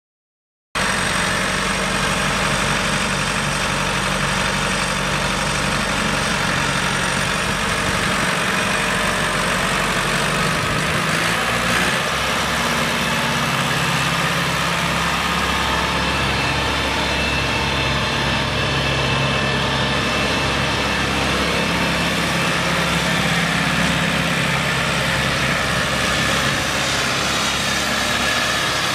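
A 2002 New Holland TS100 tractor's four-cylinder turbo diesel engine running steadily at idle, cutting in abruptly about a second in.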